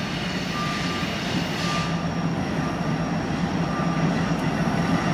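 Diesel freight locomotives approaching with a steady engine drone that grows a little louder toward the end. A short high beep repeats about once a second.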